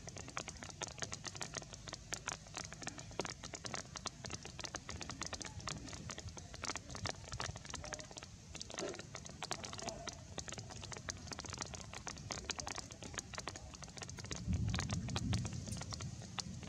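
Light rain pattering: a steady crackle of many small drops. A low rumble swells in near the end.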